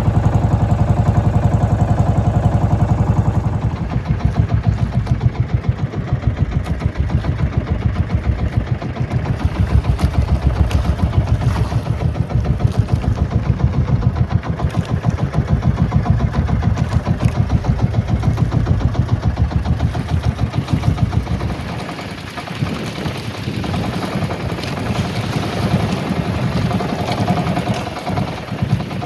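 Small boat's engine running with a steady rapid pulse. The running changes about four seconds in, and the deepest part of the sound drops away after about twenty-one seconds.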